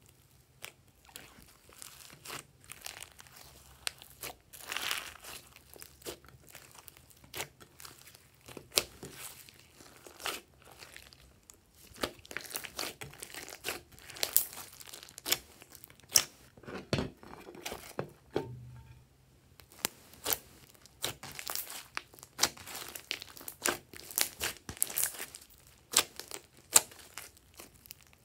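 Hands squeezing, kneading and pulling apart a mass of glossy slime mixed with foam clay and glitter: irregular sticky clicks, pops and crackles, with a short lull about two-thirds of the way through.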